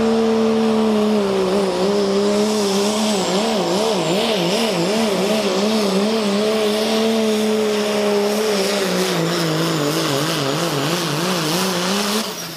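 Dodge Ram limited pro stock pulling truck's Cummins diesel engine at full throttle, dragging a weight-transfer sled: a loud, steady drone whose pitch dips early, wavers quickly up and down for several seconds, then sags lower as the load builds, before the sound drops away near the end.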